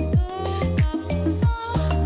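Background music with a steady drum beat, about three kick-drum hits a second, over a held bass line and a melody.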